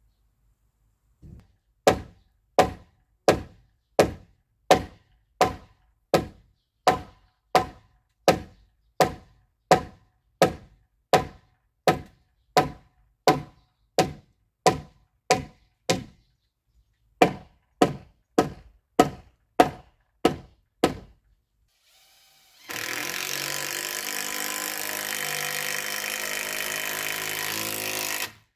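A hammer strikes the top of a pine/spruce timber post, about 27 even blows at roughly one and a half a second with one short break. About 23 seconds in, a handheld power tool starts running steadily, stops for a moment near the end and starts again.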